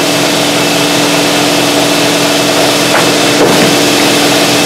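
A machine running steadily with a loud, even hum and hiss.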